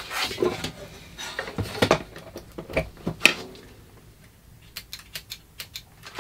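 Small knocks and clicks of test leads and clips being handled and connected on a workbench, followed by a quick run of light, sharp clicks near the end.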